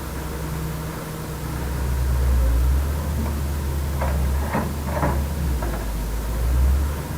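Heavy construction machinery engine running with a steady low rumble, rising and falling a little, with a few short clanks about four to five seconds in.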